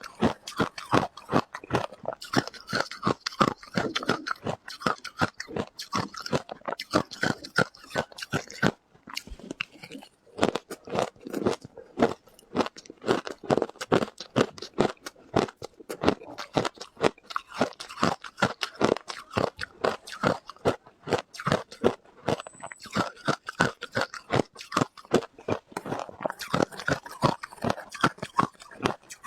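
Ice being bitten and chewed close to the microphone: a steady run of sharp crunches, about three a second, with a brief lull partway through.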